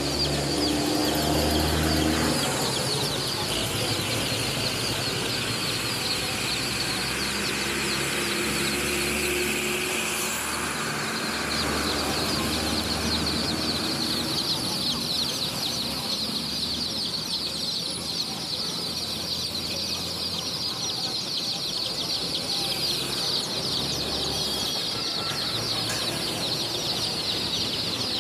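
A large flock of young domestic chicks peeping all at once, a dense, continuous chorus of short high cheeps. A low rumble comes and goes underneath.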